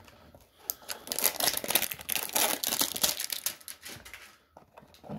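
Plastic shrink wrap being torn and crinkled off a cardboard trading-card hanger box. The crackling is densest for a couple of seconds after the first second and dies away about four seconds in, with one sharp click near the end.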